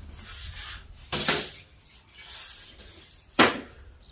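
A large finned copper-aluminum radiator coil is shifted and tipped over onto concrete, its metal scraping and clanking. A sharp clank comes about a second in, and a louder one about three and a half seconds in.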